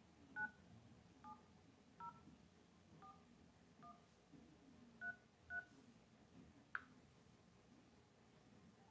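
Smartphone dialer keypad touch tones (DTMF) as seven digits are tapped in: short two-tone beeps at an uneven pace, the last two identical. A single short click follows a little over a second later.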